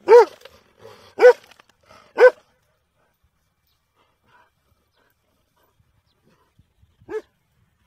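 A dog barking: three loud barks about a second apart, then a single quieter bark near the end.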